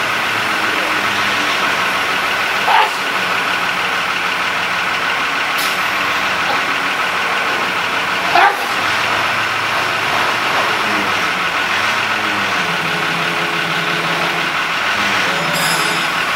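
Mobile crane's engine running steadily, with two short knocks about three and eight and a half seconds in.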